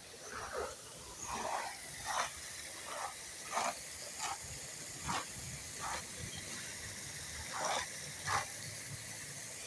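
Footsteps crunching on a leaf-strewn park path at a walking pace, about one to two steps a second.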